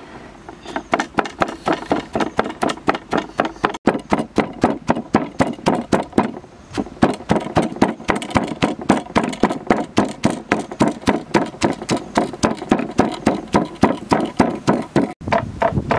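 Wooden pestle pounding red chilies, garlic and salt in a stone mortar: rapid, even strokes at about four a second, starting about a second in, each a sharp knock with a crunch of the ingredients being crushed.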